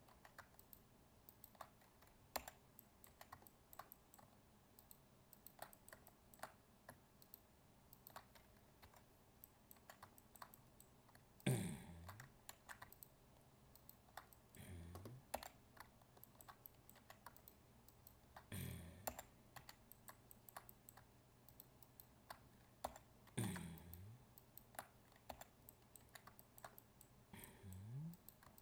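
Faint, sporadic clicking of computer keyboard keys and a mouse. From about halfway through come five louder, deeper thuds, a few seconds apart.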